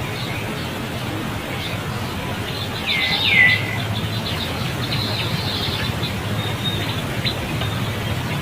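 Two short, high-pitched animal calls about three seconds in, each sweeping downward in pitch, amid scattered short chirps over a steady low background noise.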